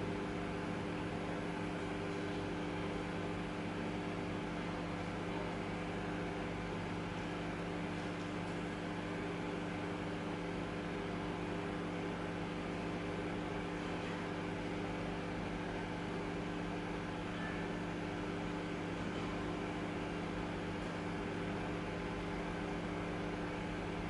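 Microwave oven running with a steady hum from its transformer and cooling fan while it heats a BIC lighter. There are no pops or crackles: the lighter does not arc.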